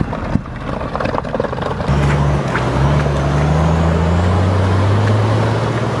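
Knocks and rattles, then from about two seconds in an off-road 4x4's engine runs steadily under load, its pitch slowly rising, over the noise of mud and water splashing.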